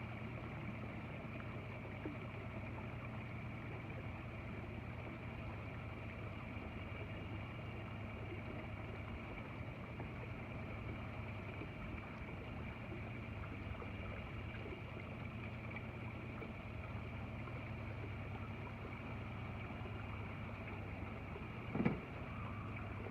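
Boat motor running steadily underway, a constant hum with a higher whine above it; a brief knock near the end.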